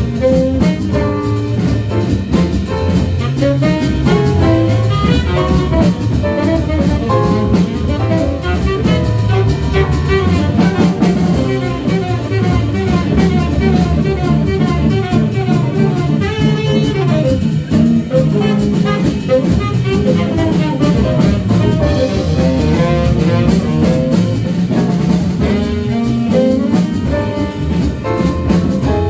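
Live jazz band playing: a saxophone runs through fast melodic lines over drum kit and bass.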